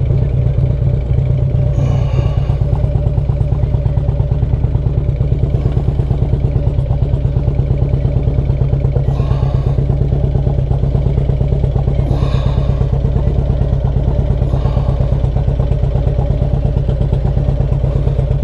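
Harley-Davidson Street Glide's V-twin engine idling steadily with an even, pulsing beat.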